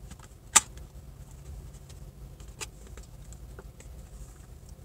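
Cardboard pastry box being handled and opened: a sharp click about half a second in, a fainter one a couple of seconds later, and small rustling ticks over a low steady hum.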